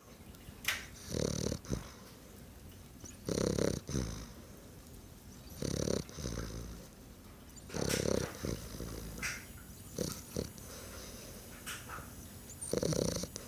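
A dog snoring in a steady rhythm, one snore roughly every two seconds, about six in all.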